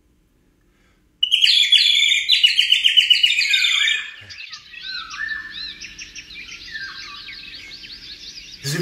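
Birdsong: about a second in, a loud burst of rapid chirping starts, and after a few seconds it gives way to a fainter chorus of many birds calling over one another.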